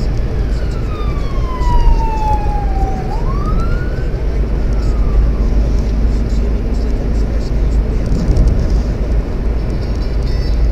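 Steady low rumble of a car driving, heard from inside the cabin. Over it a siren-like whistling tone slides slowly down for about three seconds, sweeps quickly back up and fades out about five seconds in.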